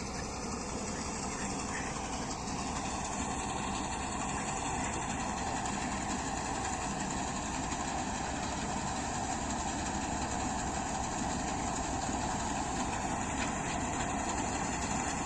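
Combine harvester running steadily: continuous engine and machinery noise with no change in speed.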